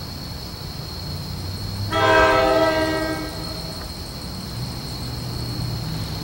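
Approaching NJ Transit PL42AC diesel locomotive sounding its horn once, a short chord of about a second about two seconds in, over the low rumble of the train.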